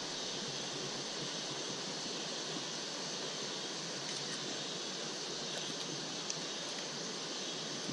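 Steady rushing of fast-moving river water, an even hiss without breaks.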